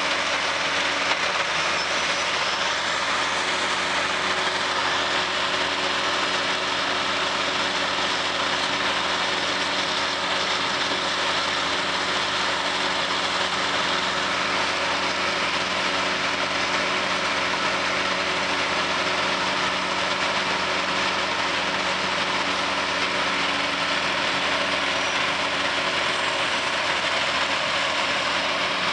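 Trailer-mounted leaf vacuum running steadily: an engine drone under a loud rush of air through its intake hose as leaves are raked into it.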